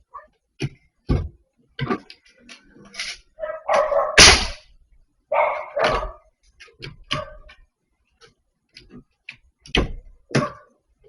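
A dog barking repeatedly in short barks at irregular intervals, the loudest burst about four seconds in.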